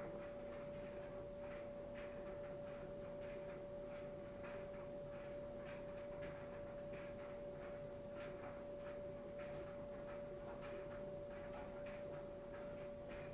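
A single steady pure tone with fainter lower tones beneath it, unchanging in pitch, with faint irregular ticks over it.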